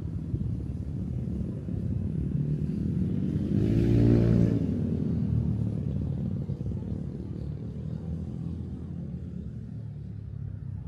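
A motor vehicle passes close by over a steady low traffic rumble. Its engine note and tyre hiss build to loudest about four seconds in, then fade away.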